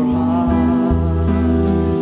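Gospel song: a male lead singer holds a long note, wavering at first then steadying, over an instrumental backing with a deep bass line.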